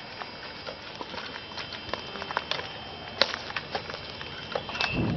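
Footsteps of people running over dry leaf litter and sticks on a forest floor: a quick, irregular patter of crackles and snaps.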